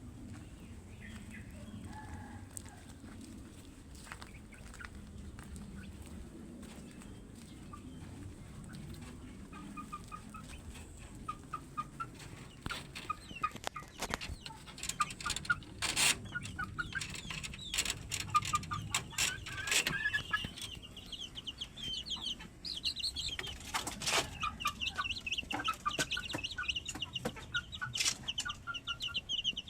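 Chickens clucking in short repeated calls, starting about ten seconds in and growing busier and higher-pitched from about twenty seconds, with scattered sharp clicks.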